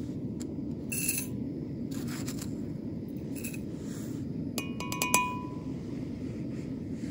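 Metal clinking against an enamel camp mug: a cluster of four or five quick clinks, ringing briefly, about five seconds in, and a single softer clink about a second in. Under them runs a steady low background noise.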